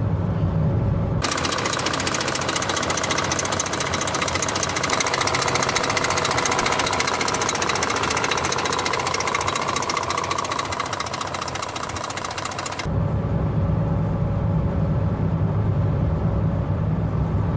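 Car V8 engine running with a rapid, even knocking, the rod knock the owner says the car has. It is heard close up for most of the stretch, then gives way to the low drone of the car on the road about 13 seconds in.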